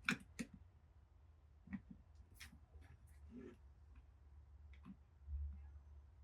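Faint scattered clicks and taps from hands working at doorbell wiring, disconnecting and taping a wire. The sharpest two clicks come right at the start, and a brief low rumble comes about five seconds in.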